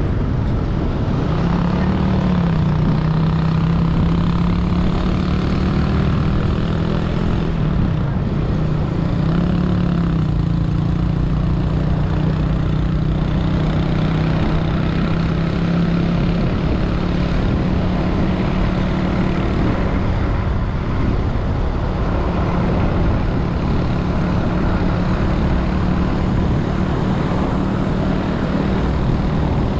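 Engine of a moving road vehicle running at a steady cruising speed, a constant hum that dips briefly in pitch a few times during the first ten seconds as the throttle changes, over low rumbling wind and road noise.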